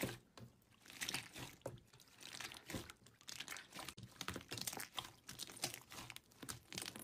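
Hands squeezing and stretching slime: faint, irregular sticky clicks and crackles.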